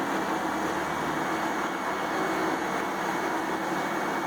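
Morbark wood chipper running steadily: an even mechanical noise with a constant low hum and no change in load.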